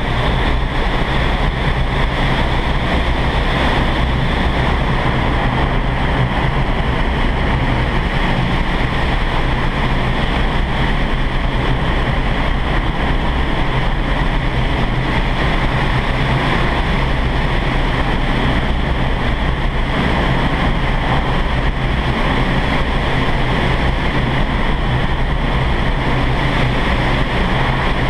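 Indoor vertical wind tunnel running: a loud, steady rush of air blowing up through the flight chamber.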